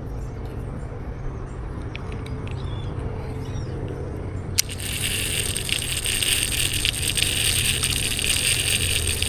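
FishingFans DC-One digital baitcasting reel being cranked to retrieve the line: after a sharp click about halfway in, a steady whirring with fine rapid ticks, over a low wind rumble.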